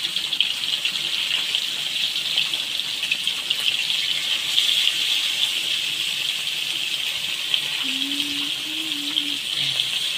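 Flour-dredged small fish frying in hot oil in a wok: a steady, crackling sizzle.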